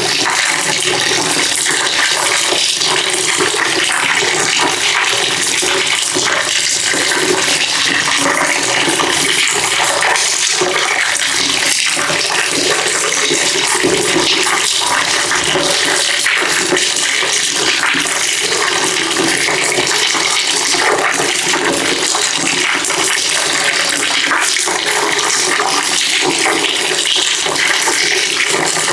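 Water pouring in a steady stream into a bucket, splashing and churning without a break.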